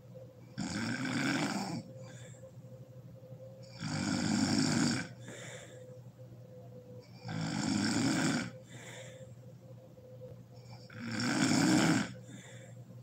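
A sleeping woman snoring heavily: four snores each about a second long, coming about every three and a half seconds, each followed by a fainter breath.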